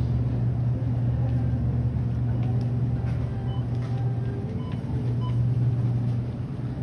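Steady low hum of supermarket refrigeration and ventilation in a frozen-food aisle, with faint scattered short tones above it from the store.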